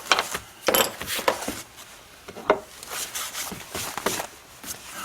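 Leather pieces and hand tools being handled on a work surface: irregular taps, knocks and rubbing, with a few sharper knocks in the first few seconds.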